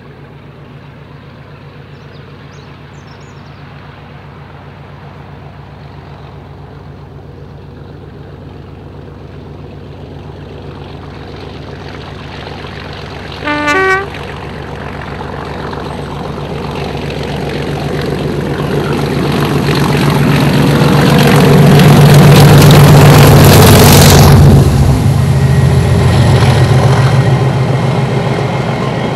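Diesel locomotive hauling a train, its engine growing steadily louder as it approaches, with a short horn blast about halfway through. It passes loudest a little over 20 seconds in, then the engine note drops away suddenly, leaving the rolling noise of the train.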